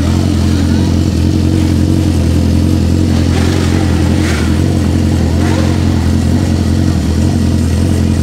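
Sport motorcycle engine idling, loud and steady, with no revving.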